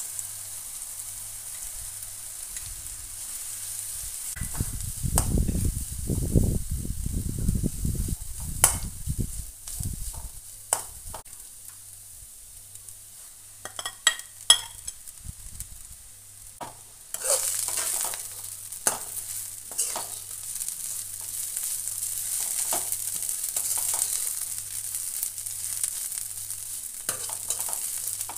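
Shallots and green chillies sizzling in oil in an aluminium kadai, with utensil clicks and scrapes against the pan. The sizzle gets louder from about two thirds through, once a handful of moringa leaves is in and being stirred. A low rumble comes a few seconds in.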